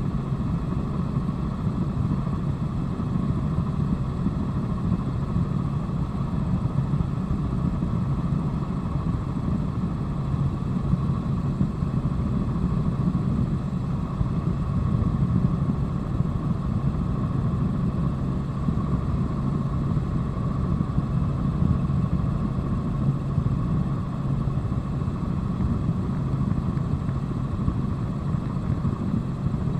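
Helicopter in flight heard from on board: steady engine and rotor noise.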